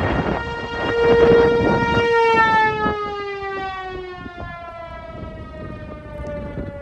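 Outdoor tornado warning siren. Its wailing tone holds steady, then slowly falls in pitch and fades as it winds down. Gusty wind noise hits the microphone in the first few seconds.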